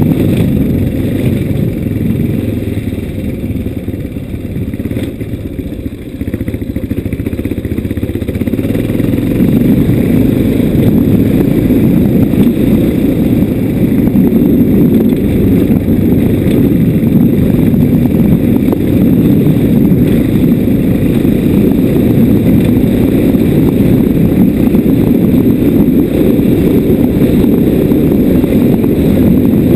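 Loud, steady low rumble of a ride along a rough dirt track: wind on the microphone mixed with the vehicle's running and jolting noise. It eases a little about four to eight seconds in, then comes back up.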